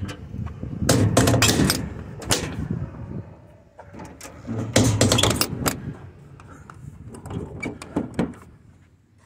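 Side compartment doors of a Reading truck cap being shut and latched: a burst of metal clatter and clicks about a second in, another around the middle, and lighter clicks near the end as a door is pressed closed.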